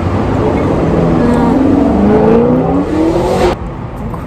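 A road vehicle's engine accelerating past, loud, its pitch climbing, then cut off abruptly about three and a half seconds in.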